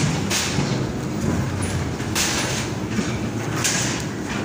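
Ghost train ride car rolling along its track with a steady low rumble, with several brief noisy surges over it.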